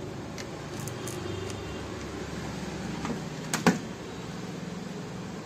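Handling noise from the home theatre unit's metal chassis: a few light clicks and one sharp knock about three and a half seconds in, over a steady low hum.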